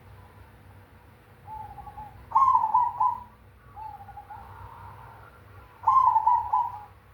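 Zebra dove (perkutut) singing its cooing song twice: each phrase starts with a soft lower note and breaks into a loud, rolling 'kung' coo, once about two seconds in and again near the end.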